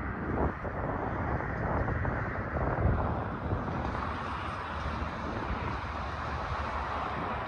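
Aircraft engine noise heard at the airfield, a steady rumbling rush that grows stronger and brighter about four seconds in.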